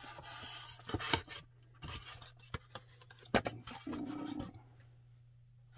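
Cardboard sliding and scraping against cardboard as a flat packing insert is pulled out of an air fryer's box, with a few sharp knocks and scuffs of handling.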